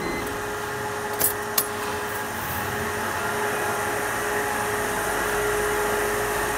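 Steady mechanical hum with a steady whine in it, and two light clicks about a second in.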